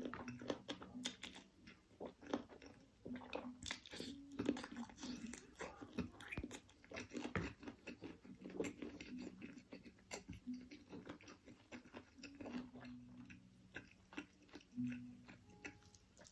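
A person chewing mouthfuls of chicken curry and rice, with wet chewing and biting and many small, irregular sharp clicks.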